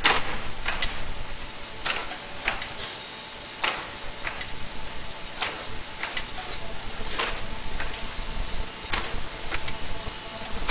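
Ultrasonic nonwoven face-mask body making machine running: sharp mechanical clacks recur in pairs about every two seconds over a steady hiss.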